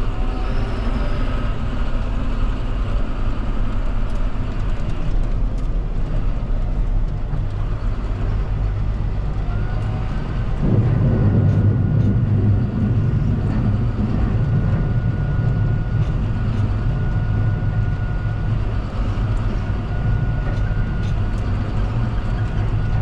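John Deere 7530 tractor's six-cylinder diesel running, heard from inside the cab. About ten seconds in the engine gets louder, and a thin, steady high whine comes in with it.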